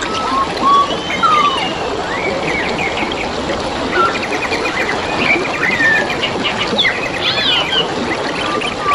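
Several forest birds calling and singing at once, with short whistles, slurred glides and rapid trills overlapping. Under them runs a steady babble of flowing water.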